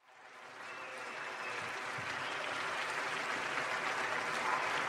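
Concert audience applauding, fading in over the first second and then holding steady.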